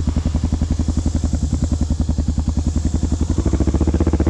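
Honda XR650L's single-cylinder four-stroke engine running at low revs, an even thumping of about twelve beats a second; near the end the revs pick up and it gets louder.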